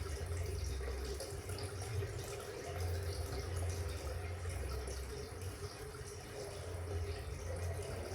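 Water running, with a steady low hum beneath it.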